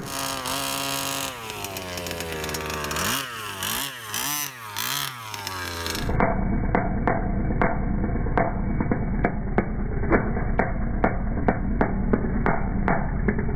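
Two-stroke gas engine of a 1/5-scale HPI Baja buggy on Primal MT monster-truck tires, spinning the tires in a smoky burnout. The revs hold high, fall away, then are blipped up and down about four times. After about six seconds the sound turns duller and steady, with a regular tick about three times a second.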